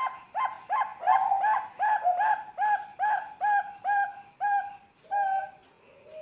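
Young zebra dove (perkutut, Bangkok strain), about three months old, singing: a run of about a dozen short cooing notes, roughly two to three a second and slowing slightly, closing with a longer note and a soft falling slur.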